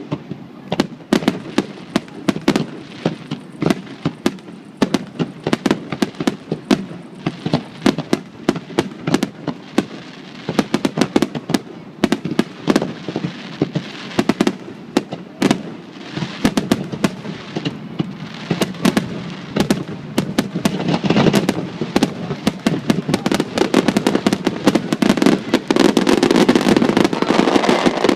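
Aerial fireworks bursting overhead in a rapid series of sharp bangs. They come faster and faster and merge into a near-continuous barrage with crackling over the last several seconds.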